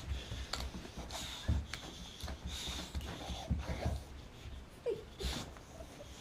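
A dog sniffing and moving about at close range, with scattered light knocks and rustles and a brief short whine about five seconds in.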